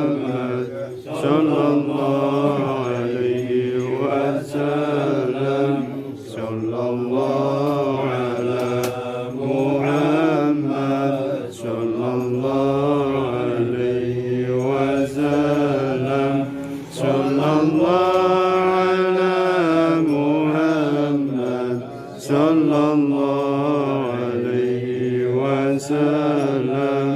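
Voices chanting Arabic sholawat, devotional verses praising the Prophet Muhammad, in a slow, drawn-out melody with short breaks between phrases.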